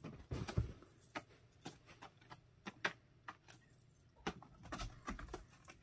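A cat toy jingling and rattling in irregular bursts of sharp clicks, several a second, as cats play with it.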